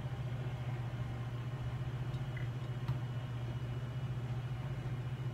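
Steady low background hum, like a machine or ventilation running, with a faint click about three seconds in.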